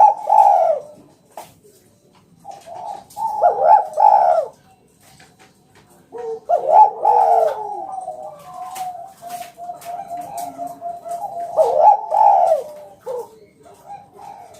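Spotted dove (tekukur) cooing loudly in repeated phrases, with a long run of rapid, even rolling notes in the middle.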